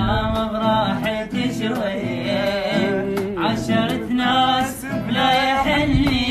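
Song: a male singer holding bending, drawn-out notes without clear words, over instrumental backing.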